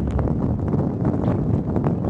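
A car driving through deep snow: a steady rumble of tyre, road and wind noise, with irregular crackling knocks from the snow and ice under the tyres.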